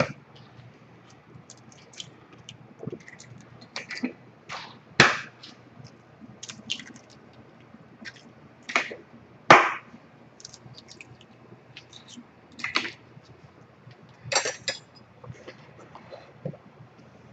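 Eggs being cracked against the rim of a mixing bowl: a series of short, sharp knocks and cracks a second or more apart, with light handling clinks between them.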